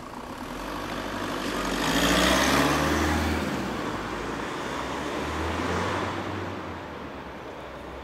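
A car pulling away and driving off, its engine rising in pitch as it accelerates, loudest about two seconds in. A second, lower engine swell follows around five to six seconds in and fades before the end.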